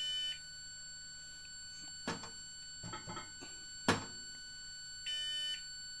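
Jenn-Air microwave oven control panel beeping: a short electronic beep at the start as it is set running, then a longer half-second beep about five seconds in, which goes with the oven flagging a door error. Between the beeps come a few sharp clicks and knocks, the sharpest about four seconds in.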